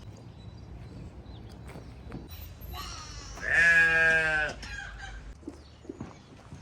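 A farm animal, a goat or sheep kind, gives one drawn-out bleat about a second long, starting a little over three seconds in. Faint clicks and rustles lie around it.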